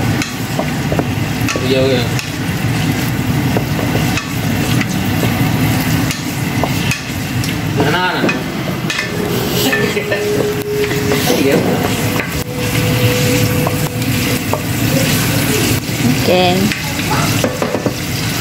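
Pieces of meat sizzling as they fry in oil in a nonstick pan, with a wooden spatula stirring them and scraping and knocking against the pan over and over.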